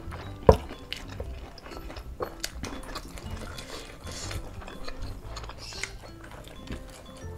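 Close-up eating sounds of fried duck eaten by hand: chewing, with small crackles and clicks as meat is pulled off the bones, and one sharp click about half a second in. Soft background music plays underneath.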